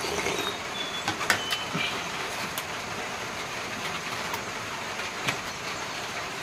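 Close-up eating sounds: a spoon sipping broth and chewing, with a few sharp clicks of a spoon against a bowl, over a steady background hiss.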